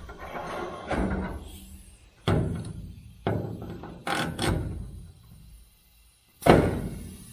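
Pneumatic huck bolt installation tool working on a huck bolt in a steel truck bracket: a run of about six sharp clunks, each dying away quickly. The loudest comes about six and a half seconds in.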